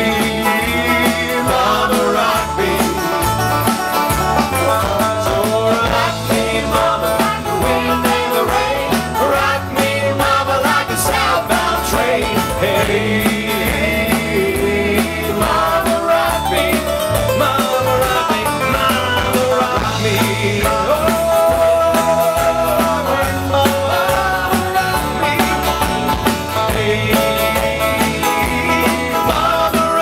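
Live country band playing: strummed acoustic guitars and cello under several voices singing together, loud and steady throughout.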